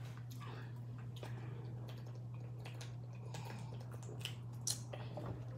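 Faint sips and swallows with small clicks of drinking from a plastic water bottle and a cup, over a steady low hum.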